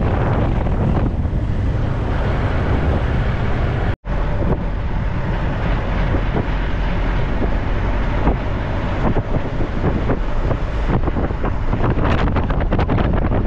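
A 1998 Sprinter motorhome driving along a road, with road noise and wind buffeting the microphone. The sound cuts out for an instant about four seconds in.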